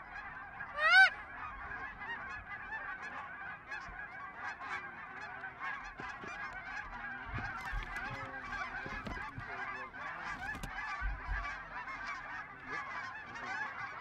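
A large flock of geese calling overhead: a dense, continuous chorus of overlapping honks, with one louder, rising honk about a second in.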